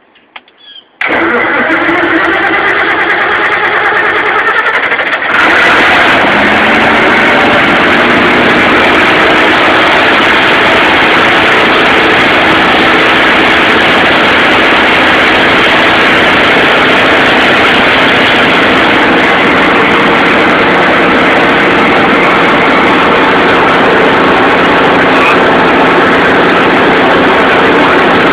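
Perkins 6354 turbocharged six-cylinder diesel engine on a generator set being started: about a second in the starter cranks it for roughly four seconds, then it catches about five seconds in, rises to speed and runs steadily.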